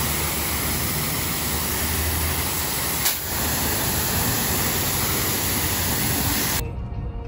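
Pressure-washer wand spraying water onto a car's paint: a steady, loud hiss, broken by a short click about three seconds in. It cuts off suddenly near the end.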